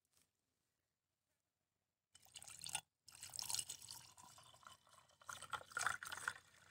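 Melon seed milk pouring from a jug into a drinking glass over ice cubes. It starts about two seconds in, stops briefly just under a second later, then pours on.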